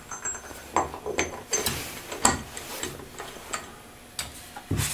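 Steel gear parts of a Turbo 400 automatic transmission clicking and clinking as the sun gear is slid down the main shaft and worked onto its splines in the output carrier: a run of irregular metallic clicks and knocks.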